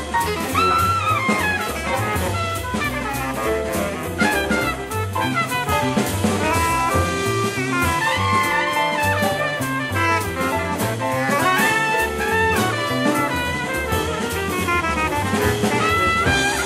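Jazz band playing at an even tempo: horns carry the melody over a bass that steps from note to note, with a drum kit.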